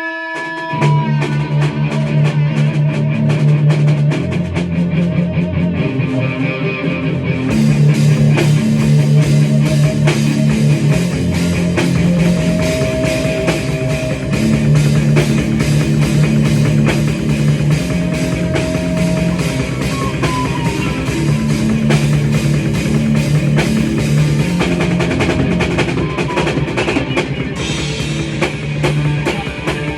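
Grunge-style rock played on guitar, bass and drum kit: a heavy repeating low riff kicks in about a second in after a held guitar note, and the cymbals open up about seven seconds later.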